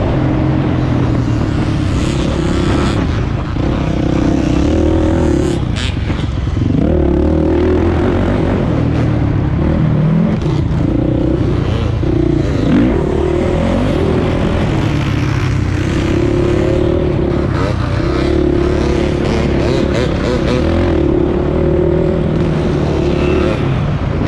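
Onboard engine of a three-wheeled ATC racing on a dirt motocross track, its pitch rising and falling again and again as the throttle is opened and closed and it shifts gear, with wind rushing over the microphone.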